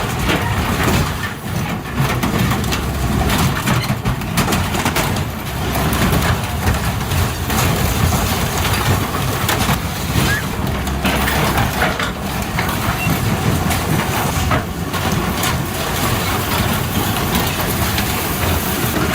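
Heavy machinery running loudly, with continuous crushing, cracking and grinding of material being torn apart.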